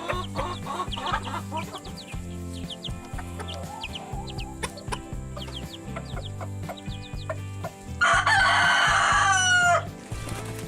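Chickens clucking with short, high, falling peeps, then a rooster crows once, loudly, for nearly two seconds near the end. Background music runs underneath.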